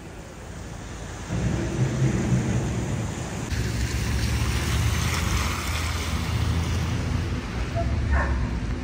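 Steady rain with a wet-street hiss, under a low rumble that sets in about a second in.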